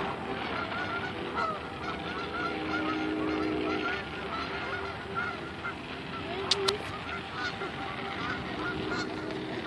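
Many geese honking over and over. Two sharp distant firework bangs come about six and a half seconds in.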